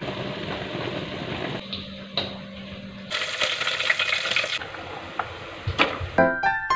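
Kitchen sounds: a steady low hum for about three seconds, then a hiss of water as a spoon stirs in a steel pot of water, a couple of clicks, and piano music coming in near the end.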